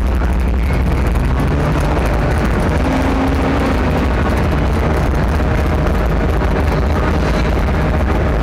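Sherp ATV's diesel engine running steadily as the vehicle drives through mud, a deep continuous drone heard from inside the cab.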